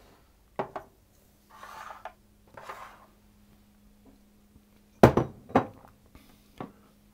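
Kitchen utensils and a mixing bowl being handled on a worktop: a few sharp knocks and clinks, the loudest about five seconds in, with a couple of short rustling scrapes between them. A faint steady hum sits underneath.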